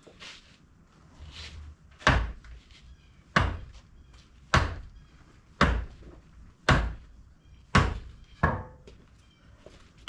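Seven heavy hammer blows on metal, about one a second, with a short ring after each, knocking the track tensioner back to force grease out of the track adjuster cylinder and slacken the track.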